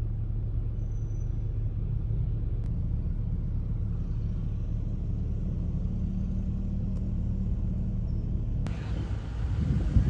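A car driving in traffic: a steady low engine and road rumble. Near the end it cuts off abruptly and a gustier, wind-buffeted noise takes over.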